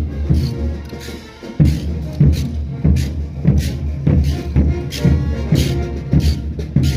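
Brass band playing festive Andean dance music, with a steady bass-drum beat about every two-thirds of a second. The music thins out briefly about a second in, then picks up again.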